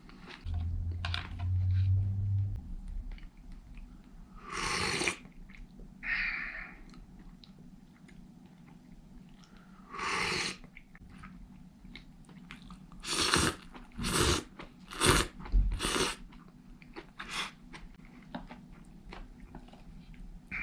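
A person eating a bowl of suanlafen glass noodles: chewing, with a series of short noisy slurps, several in quick succession about two-thirds of the way in. A low hum sounds for about two seconds near the start.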